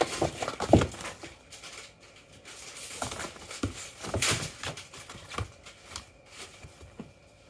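A cat scrambling about inside a cardboard box: paws thumping and scratching on the cardboard, with rustling. Loudest within the first second and again from about three to four and a half seconds in, then dying down near the end.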